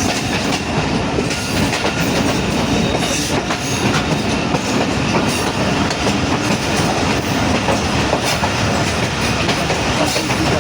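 Pakistan Railways passenger train running on the rails, heard from inside the coach: a steady loud rumble with the clatter of wheels over the track.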